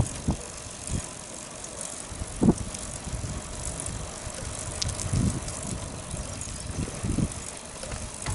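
Bicycle being ridden: a steady rattle and hum from the bike and tyres, broken by several dull knocks as it goes over bumps.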